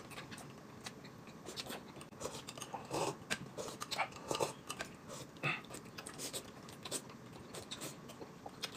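Two people eating at a table: quiet chewing of dumplings and slurping from glasses, with scattered light clicks of chopsticks against glass and plate. The most activity comes a few seconds in.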